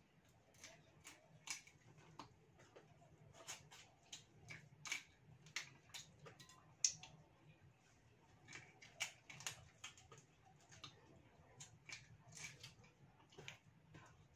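Eating sounds: irregular faint clicks and crunches, about one or two a second, as fried mantis shrimp are bitten and picked apart by hand, with one sharper crack about halfway through.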